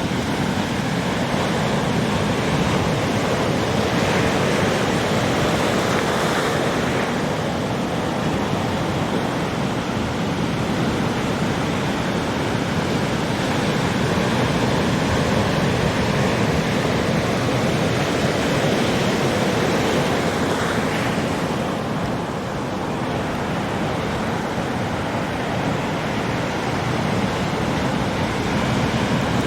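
Ocean waves breaking and washing on a beach in a steady surf, with a few louder surges, the first about four seconds in and another about twenty seconds in.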